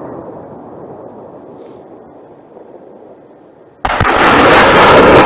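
The rumbling echo of an artillery gun's shot dies away. Then about four seconds in, another shot goes off suddenly, very loud, and its blast rolls on without fading.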